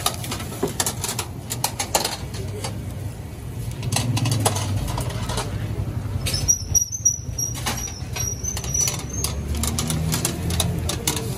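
Metal seekh kebab skewers clicking as they are handled and turned on a charcoal grill, over a steady low rumble of street noise. A faint high whistle runs for about a second and a half midway.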